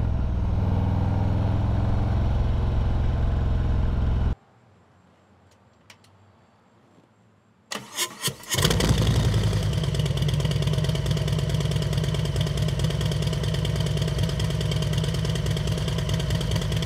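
A 2020 Harley-Davidson Road Glide's Milwaukee-Eight 114 V-twin runs through Rinehart DBX40 slip-on mufflers for about four seconds, then the sound stops abruptly. About three seconds later the starter cranks briefly, and the engine fires and settles into a steady idle.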